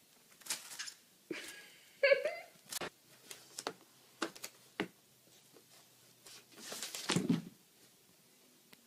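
A cat tussling with a cardboard tissue box on a desk: a string of sharp taps and scrapes, then a louder scuffling clatter with a thud about seven seconds in. About one and two seconds in there are two short vocal cries.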